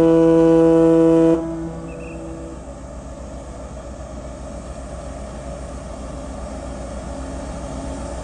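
A car ferry's horn sounding one steady, loud blast that cuts off about a second in and echoes briefly, followed by a steady low rumble.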